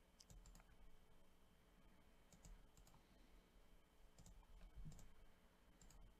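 Faint clicking of a computer mouse, a few small clusters of two or three quick clicks spread through otherwise near-silent room tone.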